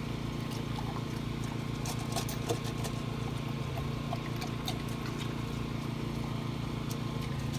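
Dog lapping at and nosing ice cubes in a stainless steel water bowl: scattered sharp clicks and clinks of ice against the metal, over a steady low machine hum.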